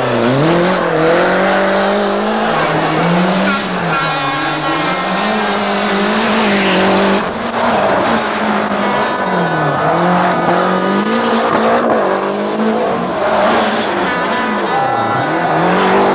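Group A Lancia Delta rally car's turbocharged four-cylinder engine run hard, its pitch climbing and dropping back again and again through gear changes and lifts. The sound changes abruptly about seven seconds in, at a cut to another car.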